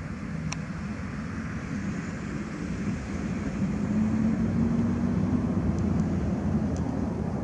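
A low engine drone with a steady hum, growing louder about halfway through.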